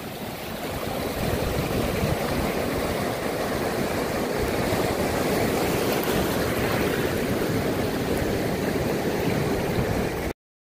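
Shallow surf washing in and out over the sand at the water's edge: a steady rush of water that cuts off suddenly near the end.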